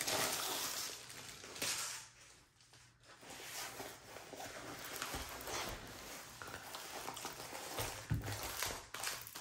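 Rustling and crinkling of a rolled diamond painting canvas and its plastic cover sheet as it is unrolled and smoothed flat on a wooden table by hand, with a brief lull about two seconds in and a soft thump near the end.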